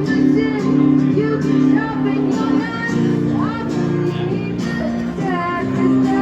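Background country-pop song with guitar.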